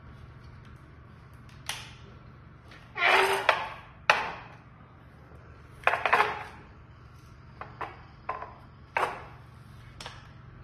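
Handling noises from a small metal-framed conveyor belt and its cables being moved about on a tiled floor: a string of knocks, clicks and scrapes over a low steady hum. The loudest is a scraping rattle about three seconds in.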